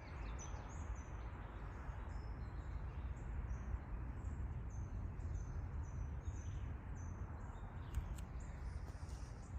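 A small bird chirping again and again, short high falling notes, over a steady low outdoor rumble.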